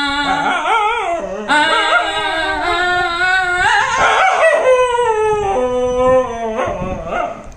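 Dog howling along with a man singing, the two holding long notes together; the dog's howl wavers and glides up and down in pitch as it follows him.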